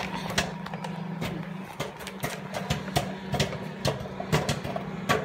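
Popcorn kernels popping in a microwave oven: irregular sharp pops, a few a second, over the oven's steady low hum.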